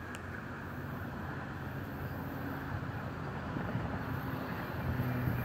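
Distant diesel locomotive approaching, a low steady engine drone that slowly grows louder.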